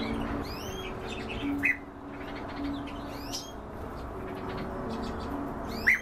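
Caged songbirds chirping: short high chirps and quick sweeping whistled notes, with a louder call about one and a half seconds in and another just before the end. Low held tones sit underneath.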